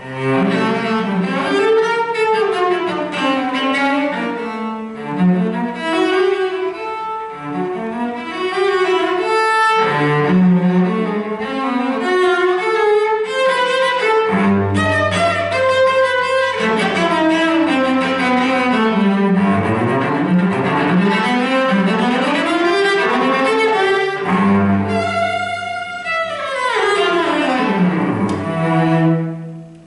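Solo cello played with the bow: fast flowing arpeggio figures over repeated low bass notes. Near the end a quick descending run leads to a final low note that closes the piece.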